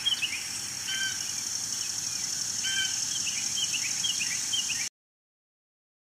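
Songbirds giving short, repeated downslurred chirps and a couple of flat whistled notes over a steady high-pitched drone, cutting off suddenly about five seconds in.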